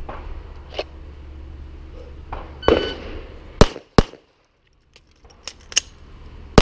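A shot timer beeps, then a Gen 3 Glock 17 9 mm pistol fires two quick shots about a third of a second apart, followed by a few small clicks of a slide-lock magazine reload and a third shot right at the end.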